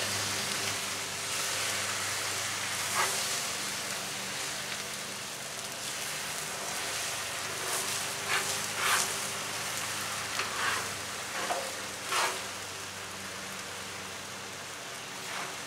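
Beaten eggs frying on a hot Blackstone griddle top, a steady sizzle, with a few short scrapes and taps of a wooden spatula stirring them.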